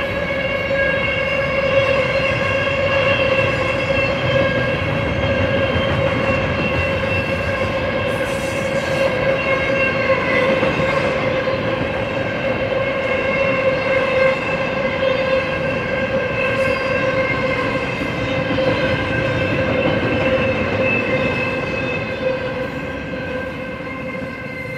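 Double-stack intermodal container train rolling past at speed: a steady rumble of well cars and wheels on rail, with a steady high-pitched squeal ringing over it. It eases off over the last few seconds.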